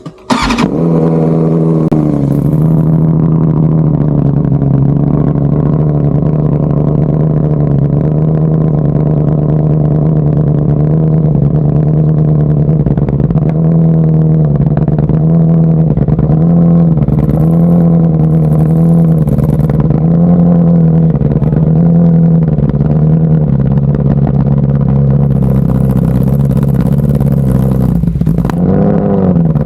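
BMW M1000RR's inline-four starting up and running loud through Akrapovič titanium headers and an open Arrow Pista GP black titanium slip-on with no dB killer. It settles to a steady idle, then from about halfway the throttle is blipped in short revs about once a second.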